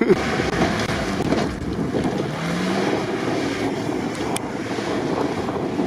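Off-road 4x4's engine running as it drives the course, with a short rise in engine pitch about two and a half seconds in. Wind buffets the microphone throughout.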